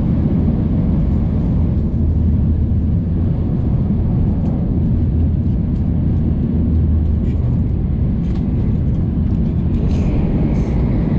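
Shinkansen bullet train running, heard inside the passenger car as a steady low rumble, with a few faint small ticks over it.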